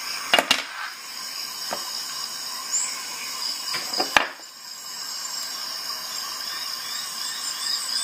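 Small metal multitool and glass beer bottle being handled on a desk: a pair of sharp clicks about half a second in and a louder knock about four seconds in, over a steady hiss.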